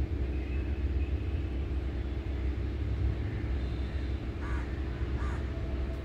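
A crow cawing twice, in short calls near the end, over a steady low rumble.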